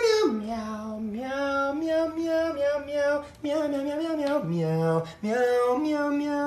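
A voice singing a slow melody in long held notes that step up and down, with a couple of short breaks between phrases.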